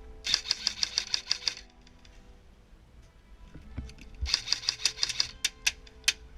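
Airsoft electric rifle firing two quick full-auto bursts of sharp clicking shots, about ten a second, then a few single shots near the end.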